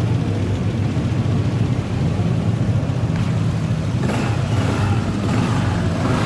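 Honda ADV 150 scooter's single-cylinder engine running steadily, now starting after a loose connection was found. It grows louder and busier about four seconds in.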